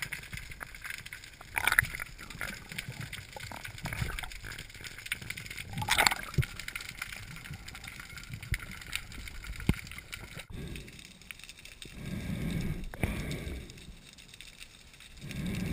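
Underwater sound through a camera housing while a freediver swims through kelp: muffled water hiss with scattered clicks and crackles, two sharper ones near the start. In the second half come two low whooshing swells of water moving past the housing.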